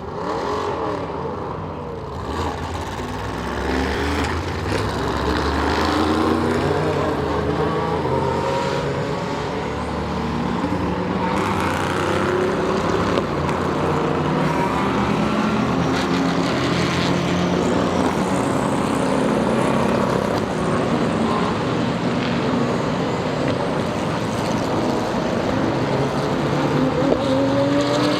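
IMSA WeatherTech SportsCar Championship race cars running at speed on track, several engines heard at once. Their pitch rises and falls continuously through gear changes and passes, with no break.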